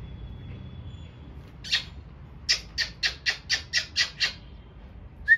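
A bird squawking: one harsh call, then a quick run of about eight more at roughly four a second. A short whistled note comes right at the end.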